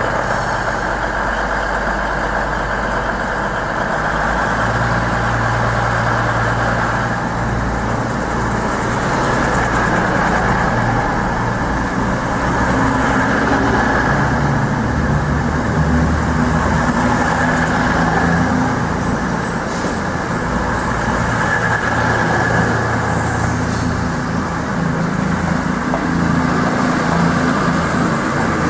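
Voyager diesel multiple units running through the station with their underfloor diesel engines sounding a steady drone, the engine note stepping up and down in pitch.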